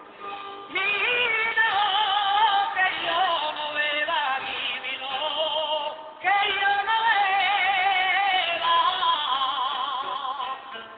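A male jotero singing a Riojan jota in a high voice with wide vibrato: two long, ornamented sung phrases, the first about a second in and the second about six seconds in, with instruments playing between them. The sound is narrow and muffled, as from an old cassette tape.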